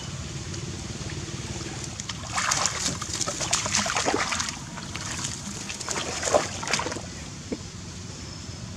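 Monkeys splashing in shallow river water and scrambling through wet grass at the bank, heard as two bursts of splashing and rustling, the first about two seconds long and the second about a second long.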